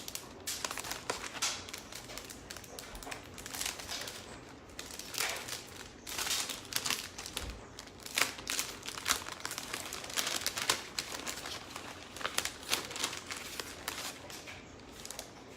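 Crinkling and rustling of plastic transfer stencil sheets being handled and shuffled, in irregular crisp bursts.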